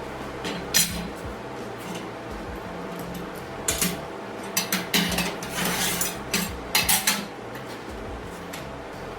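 Pieces of steel stock clanking and scraping as they are handled on a metal welding table: a knock early on, then a run of clanks and a short scrape in the middle, over a steady shop hum.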